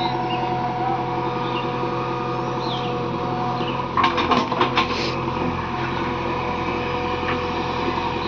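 JCB 3DX backhoe loader's diesel engine running steadily, with a quick series of sharp knocks about four seconds in.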